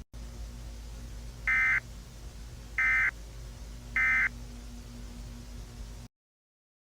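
Emergency Alert System end-of-message signal: three short, identical bursts of shrill digital data tones, a little over a second apart, marking the end of the alert. A steady low hiss and hum runs underneath and cuts off abruptly near the end.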